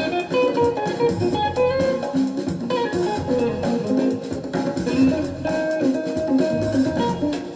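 Jazz guitar music played back from a cassette tape: a guitar picking a moving single-note melodic line over a lower accompaniment.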